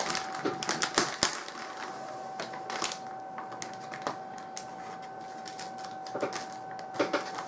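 Soft plastic cookie package crinkling and crackling as it is handled and its peel-back resealable tab is opened, busiest in the first second or so and again near the end.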